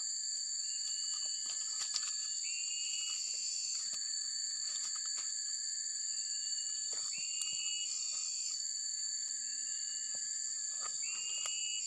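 Insect chorus: a steady, high, continuous drone of insects, over which a shorter rising call repeats every two to three seconds, with a few faint clicks.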